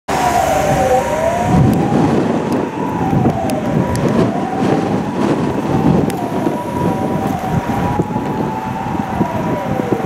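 Storm-force wind gusting hard, rumbling on the microphone, with a steady high whistle and a second whistle that swoops down in pitch and back up every couple of seconds.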